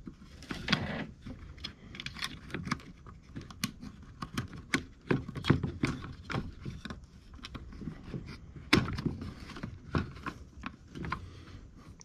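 Irregular small clicks and knocks of hard plastic and metal parts being handled, as the small black plastic clamp pieces of a drain auger's cable clamp are worked into their slots.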